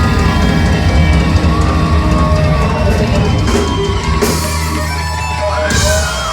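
Live rock band playing: electric guitar over held bass notes and drums, with cymbal crashes about four seconds in and near the end.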